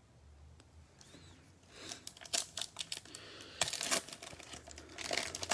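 A Panini Mosaic football card pack's shiny wrapper being torn open and crinkled by hand. The crackling tears start about two seconds in and come in several bursts, loudest near the end.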